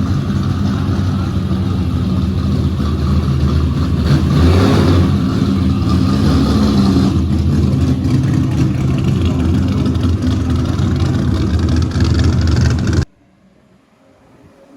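Sports car engine running loud, with a brief rise and fall in pitch about four seconds in. The sound cuts off abruptly shortly before the end, leaving only faint background.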